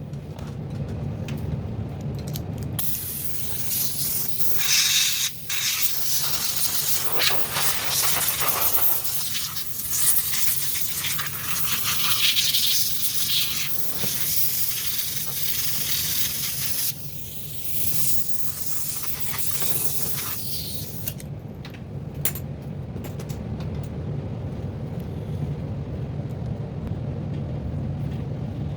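Compressed air hissing into a laptop's cooling fan to blow out dust, in long blasts with short breaks, starting about three seconds in and stopping about twenty-one seconds in. A steady low hum runs underneath throughout.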